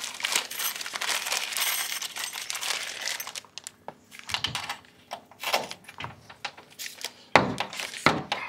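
Rustling and handling of a plastic cable clip and cable for the first three seconds or so. Then come a few sharp clicks and knocks as a coil of solar panel lead is pressed against the back of the panel and clipped onto its frame.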